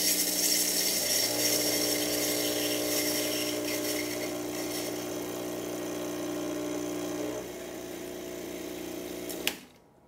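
Rancilio Silvia espresso machine's vibratory pump humming steadily while it runs water through the boiler and out of the open steam wand, with hissing and spitting from the wand: flushing the boiler down from steaming to brewing temperature. The hum drops a little in pitch and strength about seven seconds in, and stops with a click near the end.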